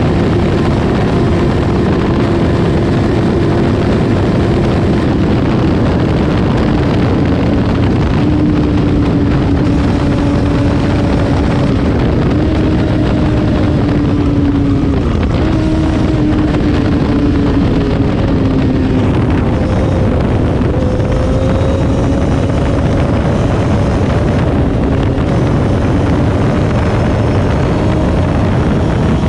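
2014 Kawasaki ZX-14R's inline-four through an Akrapovic Racing Line full exhaust, buried in heavy wind rush as the bike slows from about 295 km/h. The engine note sinks gradually and steps up in pitch a few times around the middle.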